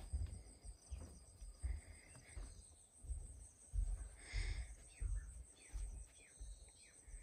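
Faint outdoor ambience of a steady high insect trill, with a few short chirps, the clearest about four seconds in. Dull low thumps of walking on a wooden floor come about twice a second.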